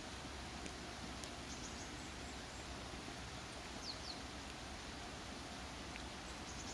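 Faint outdoor ambience: a steady low background noise with a few brief, high chirps from small birds, a pair about four seconds in.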